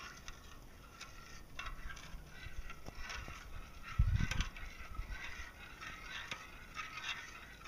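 Metal spoon stirring in a glass measuring cup, lightly scraping and clinking against the glass as lye crystals are dissolved in water. One low thump about four seconds in.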